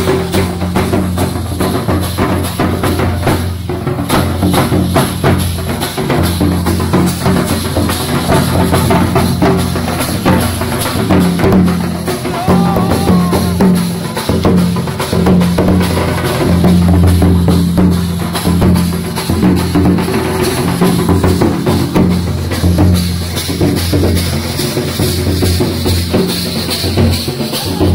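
Live drumming on large barrel drums (dhol) beaten with sticks, with metal hand cymbals clashing along, a continuous dense beat.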